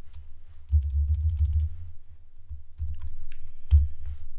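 Computer keyboard keys clicking as a command is pasted and entered in a terminal, with dull low thumps underneath, the loudest about a second in and near the end.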